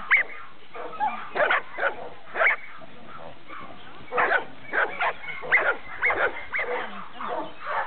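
A bandog giving short, high-pitched barks, a few near the start and a quick run of them over the second half.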